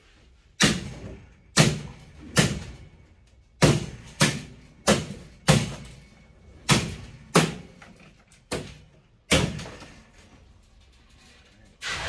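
Hammer blows on a gas furnace's copper-wound blower motor and its metal mounting, about eleven sharp strikes at uneven spacing, knocking the motor loose.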